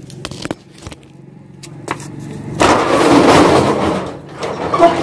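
Shop's metal rolling shutter being pushed open: a few light clicks, then a loud grating, rattling run lasting about three seconds, starting about halfway through.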